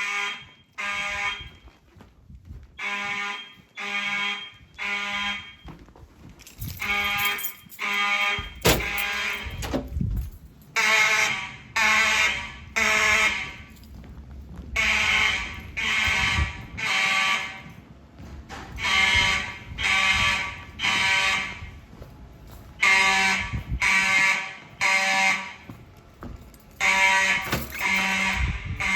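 Siemens mechanical fire alarm horns sounding a harsh, buzzy tone in repeating groups of three blasts with a pause between groups, with several horns slightly out of step. A sharp knock is heard about nine seconds in.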